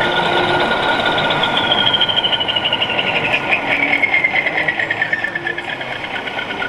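Small electric motors of RC model machines whining: one holds a steady high pitch while another slowly falls in pitch over several seconds as it slows, over a busy mechanical rush.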